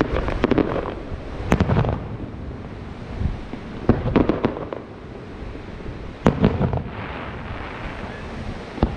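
Fireworks display: aerial shells bursting in sharp bangs a second or two apart, one cluster of several quick bangs near the middle, with a low rumble of echoing bursts between them.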